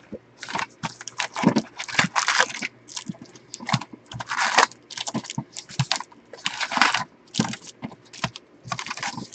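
Wrapped baseball card packs being lifted out of an opened cardboard hobby box: irregular crinkling and rustling of the pack wrappers, with a few soft knocks of cardboard.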